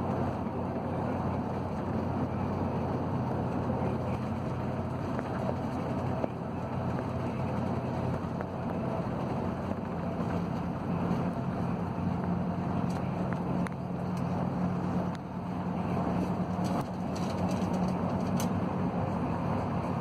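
Steady road and engine noise heard from inside a moving vehicle, with a low drone that shifts higher about halfway through.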